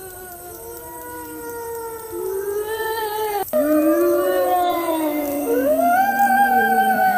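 Several canines howling together, long overlapping rising and falling howls at different pitches. The chorus grows louder about halfway through, just after a sharp click.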